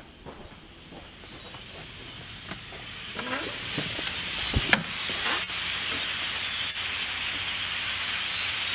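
A large flock of birds calling all at once in the trees: a dense, hissing chatter that grows steadily louder, with a few sharper chirps about halfway through.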